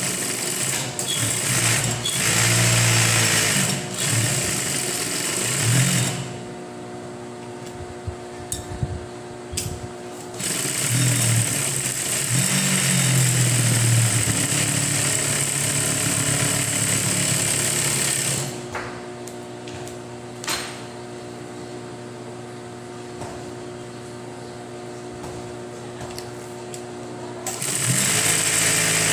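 Juki 5550 single-needle lockstitch industrial sewing machine stitching at speed in three runs: at the start, through the middle, and again near the end. In the pauses between runs a steady hum carries on.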